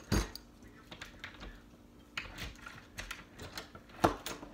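Scattered light clicks and taps, with two louder sharp knocks, one right at the start and one about four seconds in.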